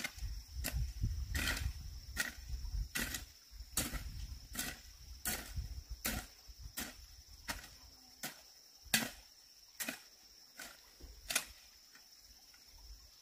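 Regular sharp knocks, about one every three-quarters of a second, growing fainter near the end, over a steady high insect drone.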